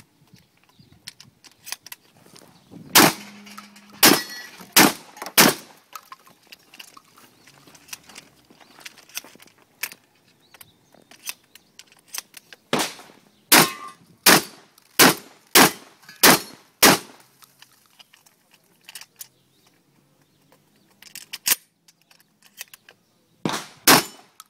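Fabarm 12-gauge tactical shotgun fired in quick strings: four shots a few seconds in, a run of seven shots about two-thirds of a second apart in the middle, and more shots near the end, with fainter clicks between the strings.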